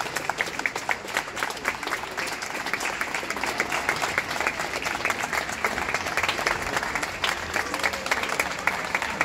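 A small crowd of spectators applauding: many quick, overlapping hand claps.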